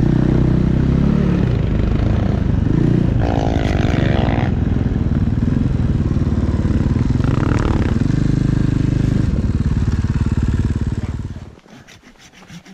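Snow bike engine running and revving up and down while riding through deep powder, then cutting off near the end.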